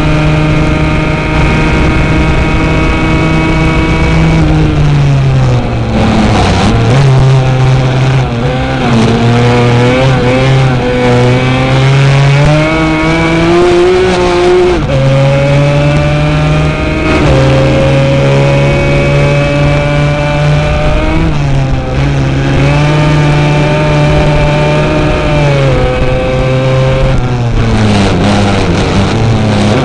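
Racing quad's engine running hard under race load, its pitch climbing and dropping again and again as the rider works the throttle and gears.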